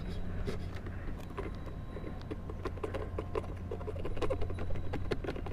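Engine oil glugging as it pours from a tipped plastic bottle into a motorcycle engine's filler hole: a run of small irregular clicks and gurgles over a steady low hum.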